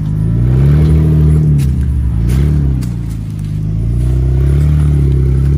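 Jeep Wrangler JK's engine revving up and down in bursts as it crawls up rock ledges on 43-inch tyres, with a few light knocks.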